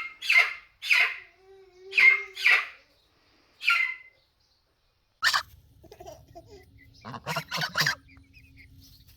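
Poultry calling: a run of loud, short, high calls through the first four seconds, then after a pause a quick cluster of calls about seven to eight seconds in, over a low steady hum.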